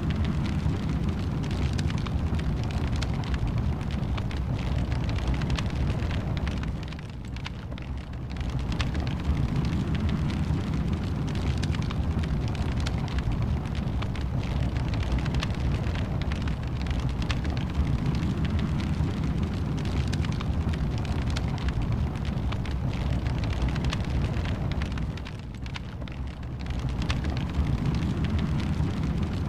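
Wood fire in a fireplace burning, with a steady low rumble and constant fine crackling. It turns briefly quieter twice, about seven seconds in and again near the end.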